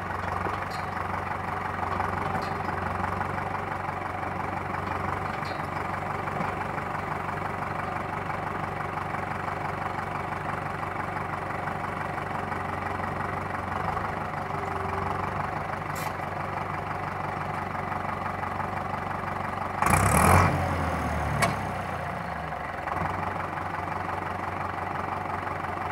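Fendt 306 tractor's diesel engine running steadily, with a loud, harsh burst of noise lasting under a second about twenty seconds in and a sharp click just after: the brakes sounding bad while also braking weakly, though the pads look good.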